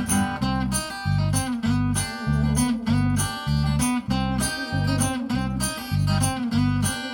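Live band playing an instrumental passage of a song: strummed acoustic guitar over a low bass line, with a steady beat of about two pulses a second.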